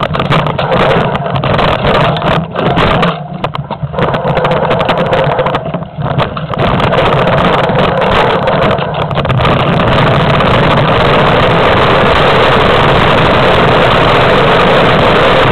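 Mountain bike on a fast downhill descent through forest, heard through a camera mounted on the bike: wind buffeting the microphone and the bike rattling over the rough trail, with jolts and knocks in the first several seconds, then a steady loud rush from about ten seconds in.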